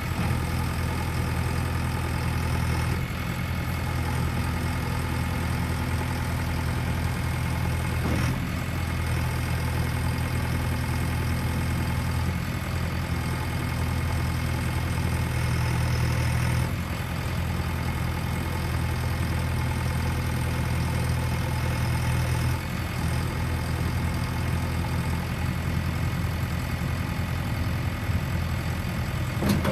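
JCB 3DX backhoe loader's diesel engine running steadily at idle, its note shifting slightly a few times.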